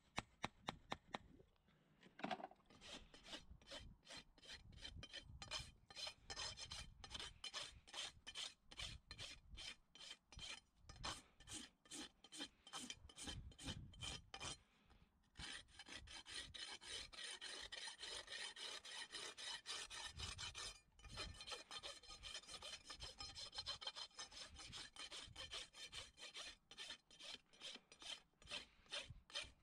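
A few sharp hammer taps, then a farrier's steel hoof rasp worked across a horse's hoof wall in rapid, even scraping strokes, pausing about halfway through and briefly again a few seconds later.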